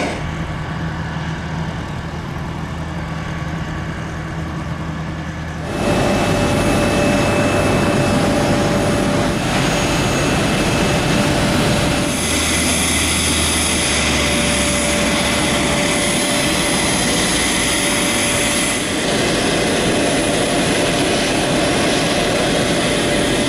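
Steady jet whine of a Boeing 737-300 at the gate, several high tones over a broad rumble. The sound jumps louder about six seconds in and changes character twice more later.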